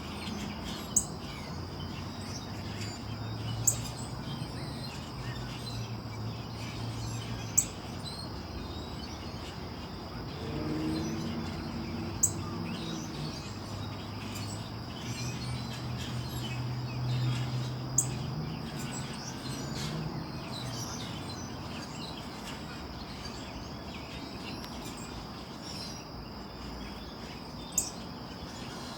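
Northern cardinal giving single sharp chip notes, about six in all, spaced several seconds apart. Behind them runs a steady high insect drone and a low rumble that swells twice.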